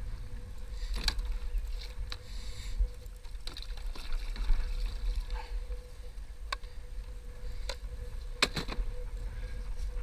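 Sounds aboard a small boat on the water: a steady low rumble and water noise, with scattered sharp knocks every second or so.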